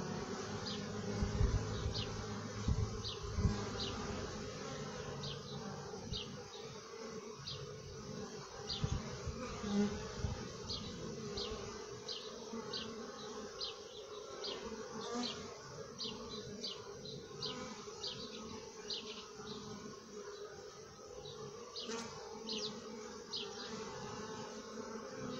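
A swarm of honey bees buzzing at a hive entrance: a steady, many-voiced hum of wingbeats. Short high chirps repeat about once or twice a second, and a few low thumps come in the first few seconds.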